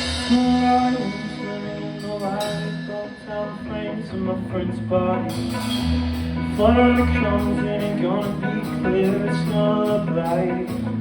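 Rock band playing live: electric guitar and bass with a voice singing, and cymbal strokes joining in a steady beat about five seconds in.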